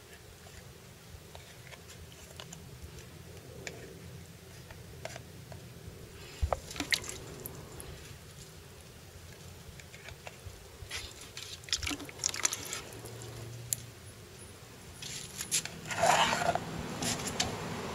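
Wet, freshly caught ayu (sweetfish) being handled in a plastic bowl: scattered squelches, taps and scrapes of fish and hand against the bowl, with a louder run of knocks and scrapes near the end.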